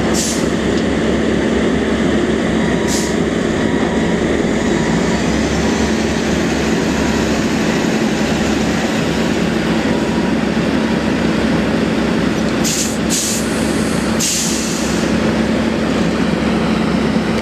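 Mack tri-axle dump truck's diesel engine running at a steady, even pitch while it manoeuvres. Short hisses from the air brakes come near the start, about three seconds in, and twice more about thirteen and fourteen seconds in.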